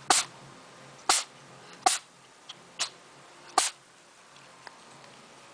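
A cat sneezing five times in quick succession, about one sneeze a second, each short and sharp.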